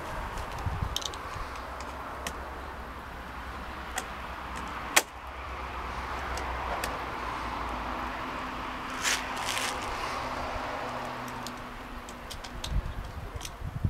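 Partner 465 two-stroke chainsaw engine running steadily at idle, with scattered clicks and one sharp click about five seconds in.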